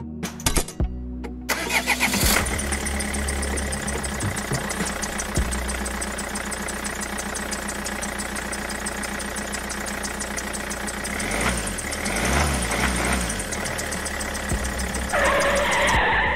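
Tractor engine sound starting up with a few clicks and then running steadily at idle. A louder, brighter stretch comes near the end.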